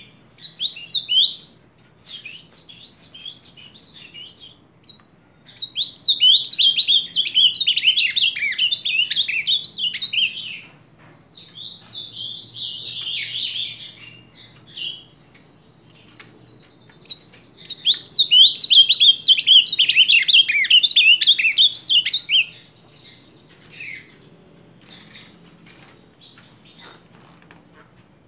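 Male ultramarine grosbeak (azulão) singing: fast, high warbled phrases in several bouts, the longest about five seconds, with quieter gaps between them.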